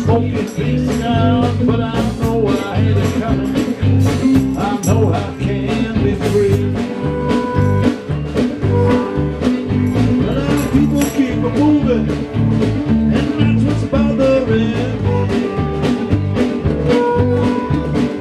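Live band playing an instrumental passage: electric guitar lines over bass and drums with a steady beat.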